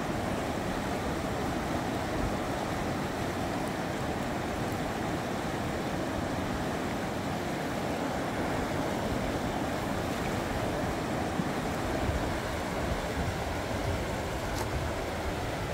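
Shallow river rapids rushing steadily over stones.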